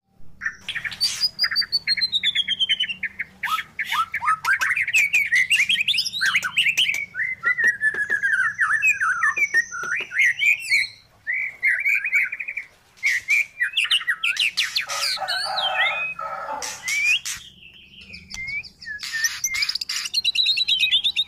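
A caged magpie-robin-type songbird (Copsychus) singing a loud, varied song of clear whistles that slide up and down and quick runs of notes. About two-thirds through comes a harsher chattering passage, then a short lull before a rapid trill near the end.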